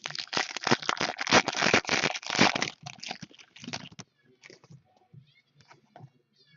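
Card pack wrapper being torn open and crinkled, loud and crackling for about three seconds, then a few lighter rustles and clicks as the cards are handled.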